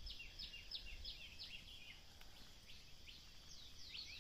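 Faint birdsong: a run of quick high chirps, each falling in pitch, several a second, over a steady high insect drone.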